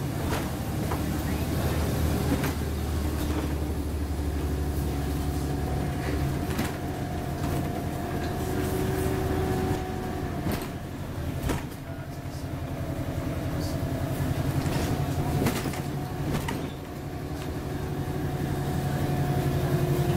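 Volvo B7LA articulated bus on the move, heard from inside: a steady low diesel rumble with a whine that drifts up in pitch several times, and scattered sharp rattles and clicks from the body.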